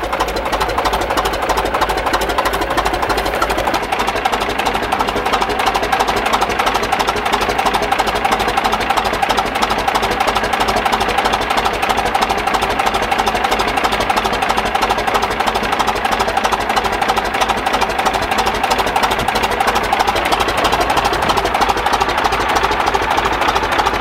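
Caterpillar D7 bulldozer's diesel engine running steadily, heard close up, with a fast, even clatter.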